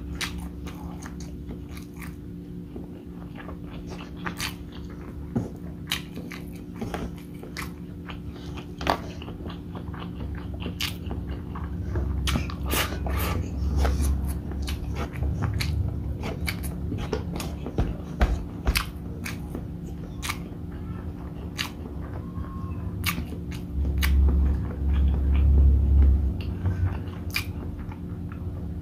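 Close-miked chewing and wet mouth clicks of someone eating beef bopis with rice by hand, over a steady low hum. Louder low rumbling comes in twice, about halfway through and again near the end.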